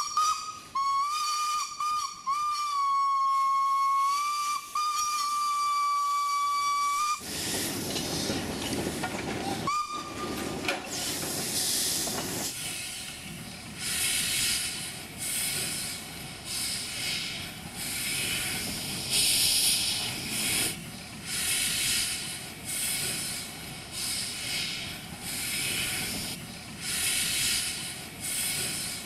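Steam locomotive whistle sounding one long steady note for about seven seconds, with a short toot a few seconds later. Then hissing steam and slow, even exhaust chuffs about once a second as the engine works.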